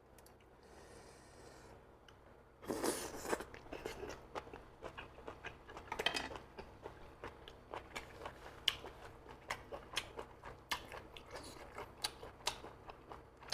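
Close-miked mouth sounds of a person eating: a louder burst about three seconds in, then chewing with many small crunchy clicks.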